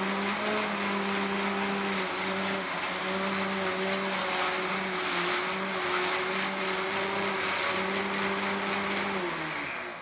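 Combat robot's belt-driven spinning weapon, powered by a brushless outrunner motor at about half throttle, running with a steady whine while the robot's geared drive motors move it around. The whine sags slightly now and then, the weapon slowing as the drive system speeds up, and drops in pitch near the end.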